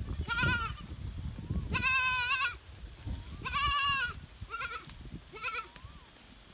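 Goats bleating: about five quavering bleats, the second and third the longest, with the last two short and fainter.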